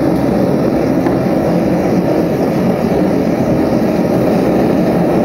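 Handmade propane venturi burner in a forge running with a steady, even roar.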